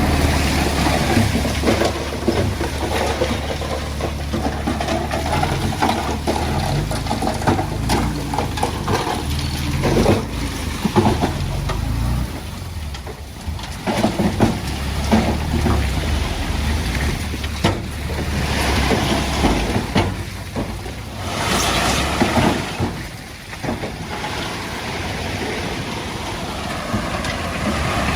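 Diesel engine of a working bulldozer running, with a steady low hum through the first half and a lot of irregular clanking and scraping from tracks and stone. There are louder rushing bursts about two-thirds of the way through.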